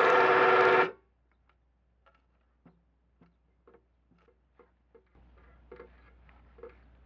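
An electric angle grinder runs at full speed and switches off about a second in, its whine dying away quickly. Then come sparse, faint, light clicks and taps, a little louder near the end.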